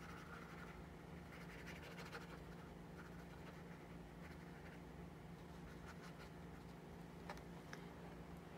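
Faint scratchy strokes of a small paintbrush working acrylic paint onto a stretched canvas, over a steady low hum, with a couple of light ticks near the end.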